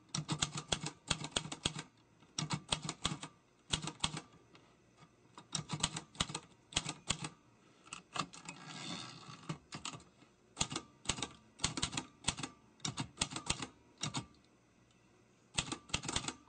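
Typewriter keys striking in quick bursts, separated by short pauses, with a longer, smoother sound about nine seconds in.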